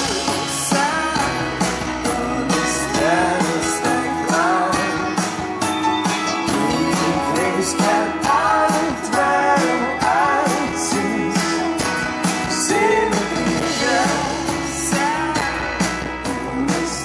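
A live pop-rock band playing: a singer over electric guitar and a drum kit keeping a steady beat.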